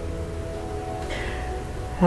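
Soft background music with held notes.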